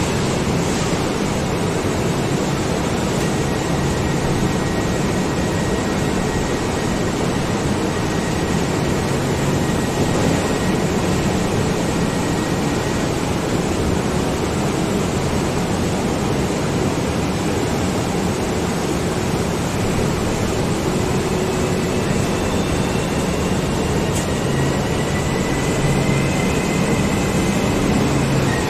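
Long container freight train passing close along the platform: a steady rolling noise of wagon wheels on the rails, with a faint high whine at times.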